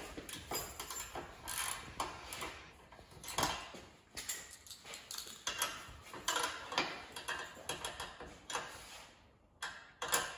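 Small hand ratchet clicking in short, irregular runs as the bolts on a rear wing's mounting bracket are tightened.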